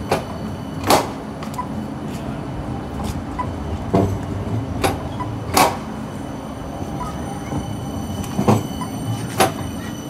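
CAF Urbos 100 light-rail tram moving past at close range: a steady running hum with faint high whine tones above it, broken by several sharp clacks.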